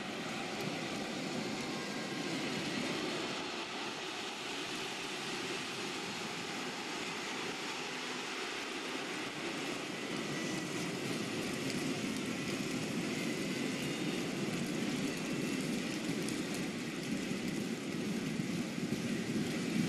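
Football stadium crowd noise: a steady roar from the stands, swelling near the end.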